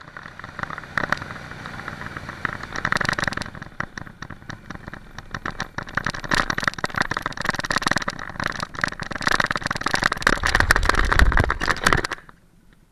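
Small motorcycle engine, a Yamaha Virago XV250 V-twin, running under heavy wind buffeting on the bike-mounted camera while riding at speed. It grows louder toward the end, then cuts off suddenly near the end.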